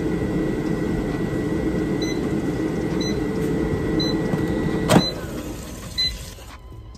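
Dual-basket air fryer's fan running steadily while it beeps about once a second, five times, as its cooking timer runs out and it goes into cool-down. A sharp clunk about five seconds in as a basket is pulled out, and the fan noise drops near the end.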